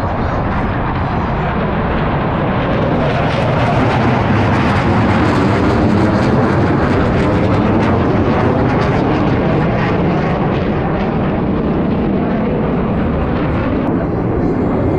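Blue Angels F/A-18 jets flying overhead: a loud, steady jet-engine rush that swells a few seconds in and holds, with a sweeping, phasing sound as the jets pass.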